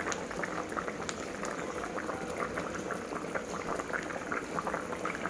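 Fish-head and vegetable curry bubbling at the boil in a pot on the stove, a steady patter of small popping bubbles.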